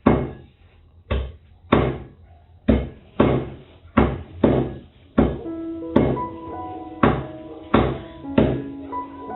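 Repeated heavy chops of a cleaver on a wooden chopping board, about one to two a second, each with a short ring. Background music with plucked notes comes in about halfway.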